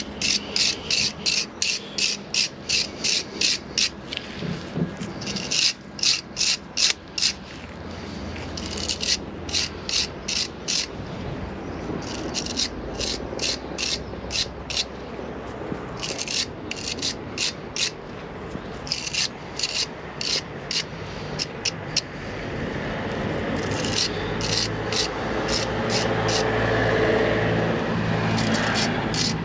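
Brass wire brush scrubbing old, gummy grease and grit off a brake caliper slide pin, in quick back-and-forth strokes about three a second. The strokes come in runs with short pauses between them.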